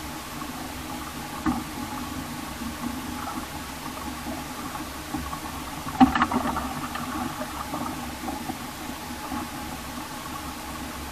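A small boat's motor runs steadily. There is a single knock about a second and a half in, and a louder clatter of knocks about six seconds in.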